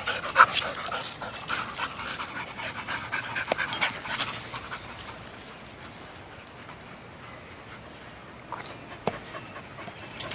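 Dog panting close by, a rapid rasping breath, that fades to quiet about halfway through as the dogs move off; a couple of sharp ticks near the end.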